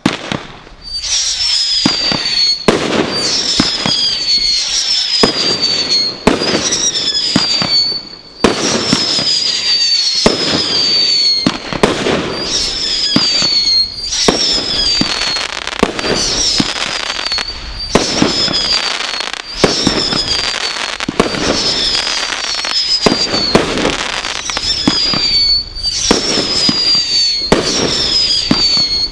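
Brothers 'The Godfather' firework barrage firing a continuous run of shots, roughly one every second. Each shot carries a whistle that falls in pitch, over steady bangs and crackling.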